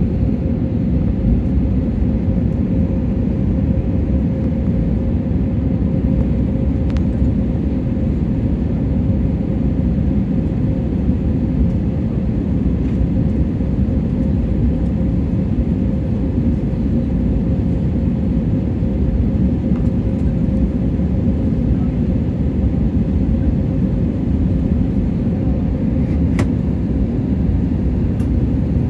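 Jet airliner cabin noise on final approach with flaps extended: a steady low rumble of engines and airflow with a constant hum.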